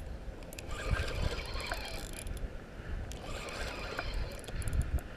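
Fishing reel being cranked to retrieve a hooked carp, its gears whirring and ticking in uneven spells, over a low rumble.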